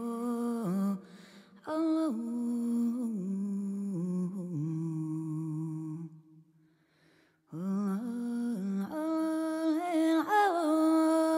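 A single voice humming a slow melody in long held notes with small gliding turns between pitches. It stops for about a second and a half midway, then resumes.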